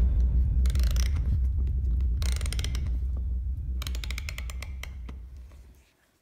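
A knob on the side of a cardboard ticket box being turned by hand, giving a ratcheting run of clicks in three bursts. A low hum underneath fades away near the end.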